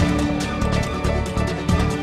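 Electronic theme music of a TV news programme's ident, with a steady beat and held synth tones.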